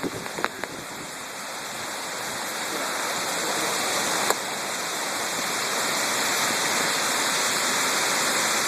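Wind storm rushing steadily, growing gradually louder, with a single sharp knock about four seconds in.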